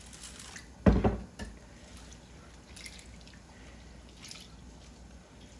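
Red lentils being washed by hand in water in a stainless steel bowl: soft splashing and dripping as the lentils are swished and rubbed. A thump about a second in is the loudest sound.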